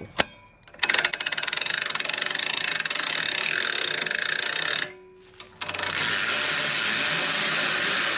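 Winch ratcheting with rapid clicks as a log is lowered down, in two runs with a short pause near the middle.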